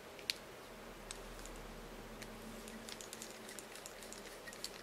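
Small parts of a Phoenix 3000 spinning reel being handled and fitted together during reassembly: one sharp click a moment in, then scattered light ticks and taps.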